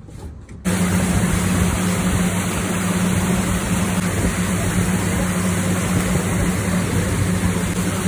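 A tour boat's engine running steadily at speed with a low hum, under loud rushing wind and water from the wake. It starts abruptly under a second in.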